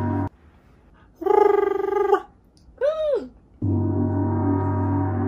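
Edited-in sound effect: a steady, droning tone that cuts off suddenly, followed by a wavering held tone of about a second and a short tone that rises and falls in pitch; then the same drone comes back and runs on.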